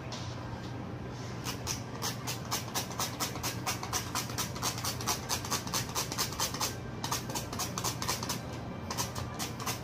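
Clear plastic packaging film crinkling as it is handled, a rapid run of crackling clicks at about six a second with a short break near the end, over a steady low hum.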